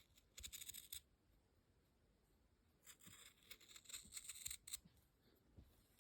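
Faint dry scratching and crackling in two spells: a short one about half a second in and a longer one of about two seconds in the middle.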